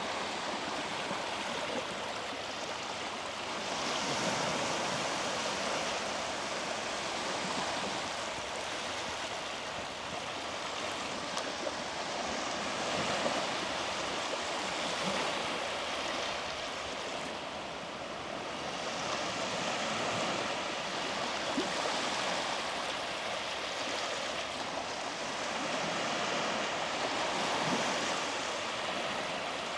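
Small sea waves breaking and washing up a beach, the surf swelling and easing every few seconds.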